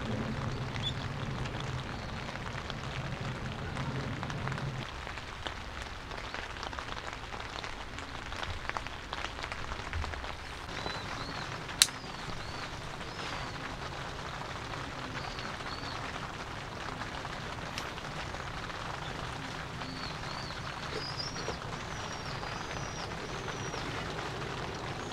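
Steady rain falling, an even hiss of drops. A few high chirps come through it about halfway and again later, and there is one sharp click about halfway through.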